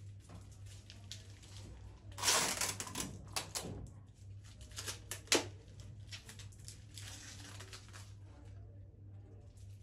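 Rustling and crackling of flower stems and leaves as stems are worked into a large hand-tied bouquet of alstroemeria and iris, loudest about two to four seconds in, with a sharp crack about five seconds in.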